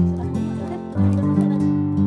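Background music: an instrumental piece of plucked, guitar-like notes, changing chord about a second in.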